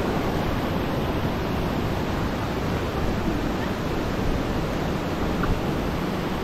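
Steady rushing noise of wind buffeting the microphone over running creek water.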